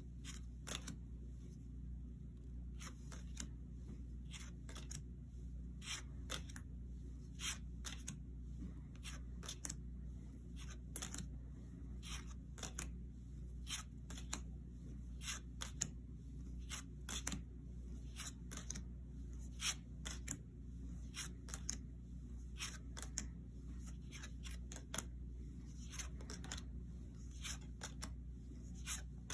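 Tarot cards being flipped through one at a time, each card turned or laid down with a short, light snap, at an uneven pace of about one or two a second, over a steady low hum.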